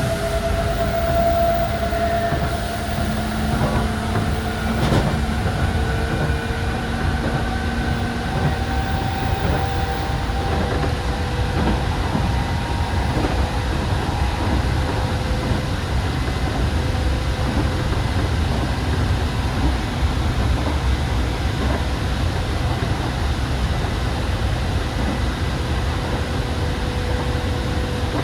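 Hanshin 5001 series electric commuter train running, with its motor whine rising slowly in pitch as it picks up speed over the first ten seconds, then holding steady over the running rumble. A single sharp knock about five seconds in.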